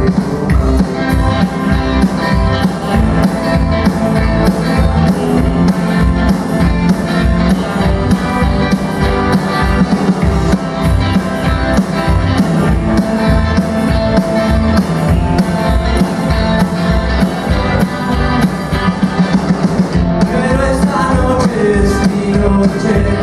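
Live rock and roll band playing loudly: electric guitars over an upright double bass and a drum kit keeping a steady beat.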